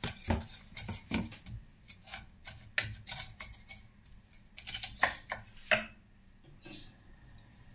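Wooden spatula knocking and scraping against a nonstick frying pan while sliced onions are stirred, a quick irregular run of clicks and taps that stops about six seconds in.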